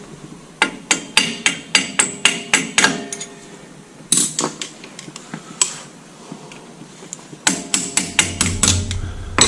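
A ball-peen hammer tapping metal on metal, driving a cotter pin into the quick hitch's pin: a quick run of about ten light taps, a few single taps, then another quick run near the end.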